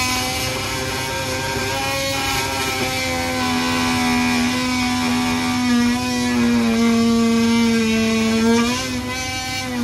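Oscillating multi-tool running and cutting a hole in the eave, a loud steady buzz. Its pitch sags for about two seconds late on, then comes back up.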